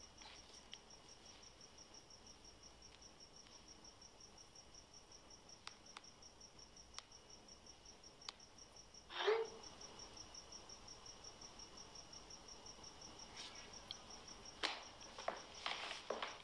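Faint, steady high chirping of crickets. About nine seconds in comes a short falling swoosh, the phone's message-sent sound, with a few soft clicks before it and some clicks and knocks near the end.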